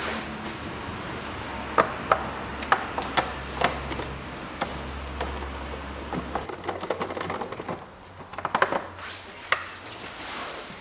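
Scattered sharp clicks and knocks of a hand tool and plastic air-intake parts being handled under the hood, coming closer together in the second half, over a steady low hum that stops about six and a half seconds in.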